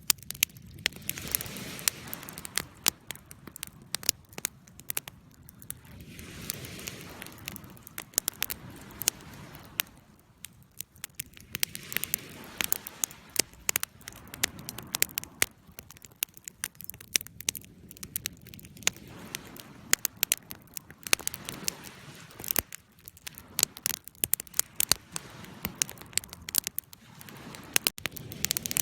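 Campfire burning: wood crackling and popping in many sharp, irregular snaps over a soft hiss of flames that swells and fades every few seconds.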